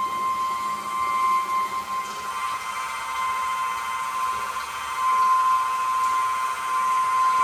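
Small electric fuel pump running with a steady high whine, circulating fuel from a drum through a flex-fuel ethanol sensor. The whine eases a little in the middle and comes back stronger near the end.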